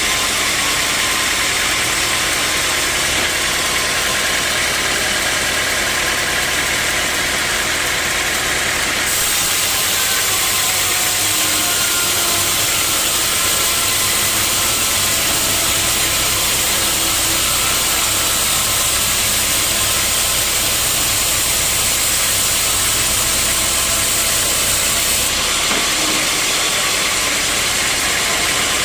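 Sawmill machinery running steadily and loudly, a mix of engine-like hum and hiss. About nine seconds in the sound turns hissier and higher, and it changes back a few seconds before the end.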